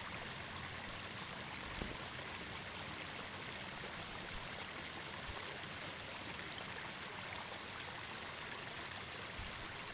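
Faint, steady hiss of river water running along the bank.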